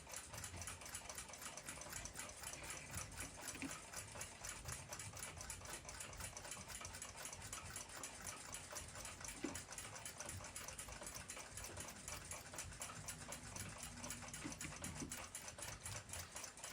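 A faint, fast, even ticking, several beats a second, with a few soft knocks from small clock parts being handled.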